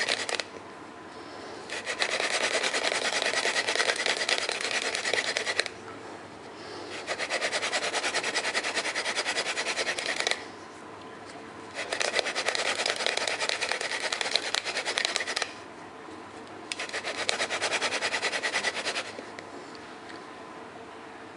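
Hand drill friction fire: a horseweed spindle spun between the palms, grinding into a Western red cedar hearth board to raise an ember, a rough rasping rub. It comes in four runs of about three to four seconds with short pauses between, and stops about nineteen seconds in.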